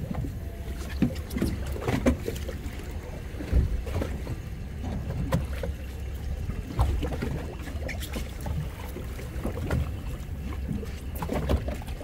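Wind rumbling on the microphone and choppy water lapping against a small fishing boat's hull, with irregular knocks on the boat every second or two.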